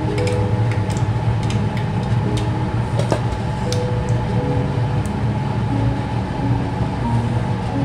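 Cumin seeds crackling now and then in hot oil in an aluminium pot, over a steady low hum.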